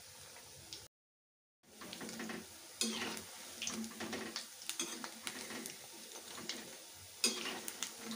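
Spinach pakoras deep-frying in hot oil in a metal kadhai, a steady sizzle, while a perforated metal slotted spoon turns them round, scraping and clinking against the pan now and then. The sound drops out completely for under a second about a second in.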